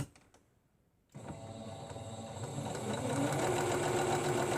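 Electric sewing machine starting up about a second in and running steadily, picking up speed and getting louder about three seconds in, as it sews a test seam at a longer stitch length after cleaning. A single click comes at the very start.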